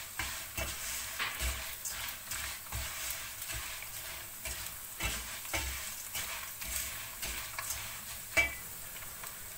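Food sizzling in a frying pan while a utensil stirs it, with irregular scraping clicks against the pan and one sharper knock about eight seconds in.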